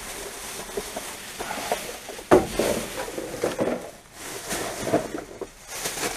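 Plastic rubbish bags rustling and crinkling as gloved hands rummage through a dumpster, with a sharp knock about two seconds in.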